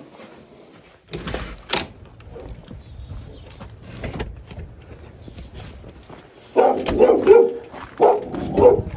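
Dog barking in two loud bursts near the end, after a few scattered clicks and knocks earlier on.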